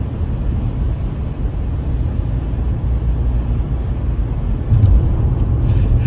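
Steady low rumble of a car's road and engine noise heard inside the cabin while driving, with a short louder bump about five seconds in.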